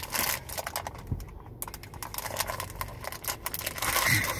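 Clear plastic snack packaging crinkling and clicking in the hands as it is worked at and pried open, in many short, irregular crackles with a louder cluster near the end.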